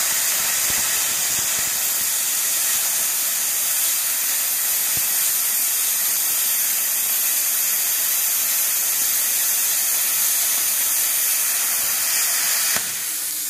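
Stahlwerk air plasma cutter cutting through a thick metal plate: a steady, loud hiss of the arc and its compressed air. The hiss drops to a quieter one about a second before the end.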